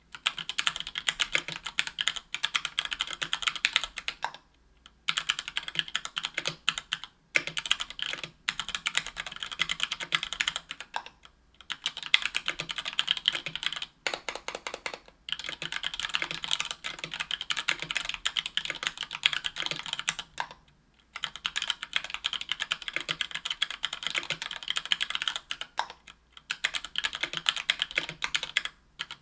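Typing on a 60% aluminium mechanical keyboard with stock, unlubed Gateron Yellow Ink 60 g linear switches and PBT keycaps, on an aluminium plate. Rapid keystrokes come in runs of a few seconds, broken by brief pauses.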